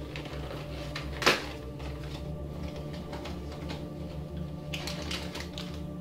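Toy packaging being handled and pulled open, with irregular crinkles and clicks and one sharp snap about a second in. A steady low hum runs underneath.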